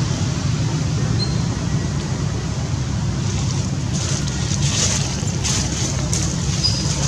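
Steady low outdoor rumble with a hiss over it, with a few faint, short high chirps near the end.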